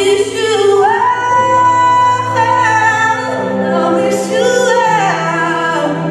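Recorded music: a slow song with sung, layered vocals and little instrumental backing, the voices holding long notes, with one long high note about a second in.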